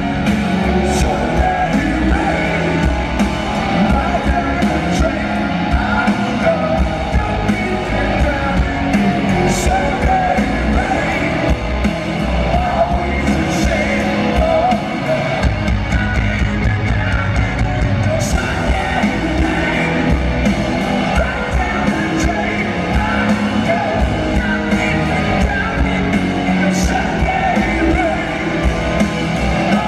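Live rock band playing at full volume: drum kit, electric guitars and bass, with a male lead vocal sung by the drummer from behind his kit. Heard from the audience in an arena.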